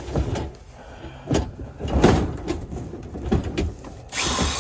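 Wooden boards of a whelping box being handled: a few dull knocks, then a short scraping rush near the end.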